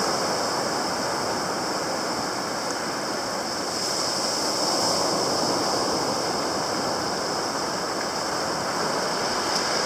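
Shallow surf washing in over sand and around wooden posts, a steady foamy wash of water that swells a little about four seconds in.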